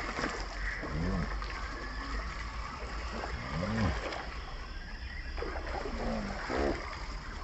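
Several low croaking animal calls, each rising and then falling in pitch, over a steady high chorus of swamp creatures.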